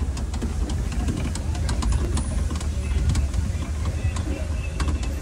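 Safari ride vehicle moving along its track, heard from on board: a steady low engine rumble with irregular rattles and knocks from the vehicle body.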